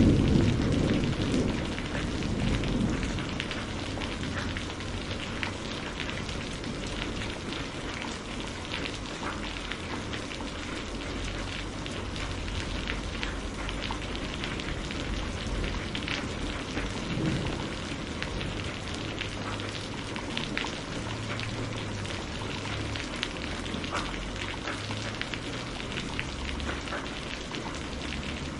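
Steady rain falling, a dense hiss with many small drop ticks. It opens with the tail of a thunder rumble that dies away over the first few seconds.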